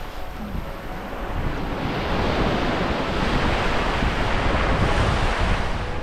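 Sea waves washing onto the shore, one surge building about two seconds in and easing off near the end, with wind buffeting the microphone.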